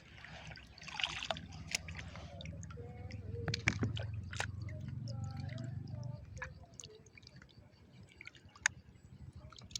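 Water splashing and dripping, with scattered sharp clicks and a noisy rustle about a second in, as a wading angler handles his catch and tackle in the shallows.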